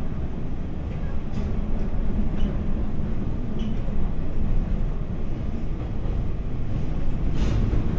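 Hanshin 8000 series electric train running, heard from inside the passenger car: a steady low rumble of wheels on rail and running gear, with a few faint clicks.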